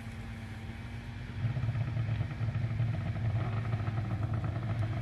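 Snowmobile engine running steadily, a low hum that gets clearly louder about a second and a half in.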